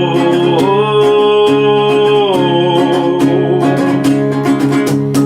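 Music: acoustic folk-rock with steadily strummed acoustic guitar and a sustained sung note between the vocal lines.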